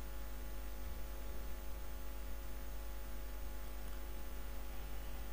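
Steady low hum with faint hiss and no distinct events: background room tone.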